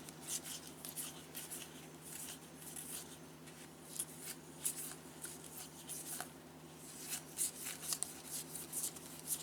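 Baseball trading cards being handled and flipped through one after another: a run of short, light swishes and flicks of card stock sliding over card stock.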